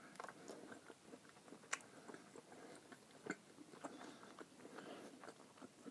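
A person chewing a mouthful of fried chili sausage with mustard: faint, wet chewing with a few sharp clicks.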